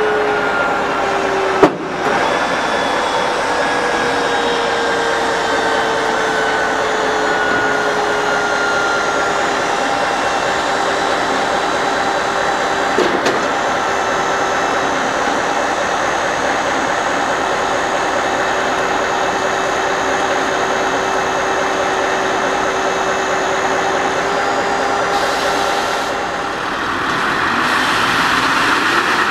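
Heavy-haul truck's diesel engine idling, a steady hum with a whine that sags slightly in pitch over the first seconds and then holds level. A single sharp click comes about two seconds in, and a hiss rises near the end.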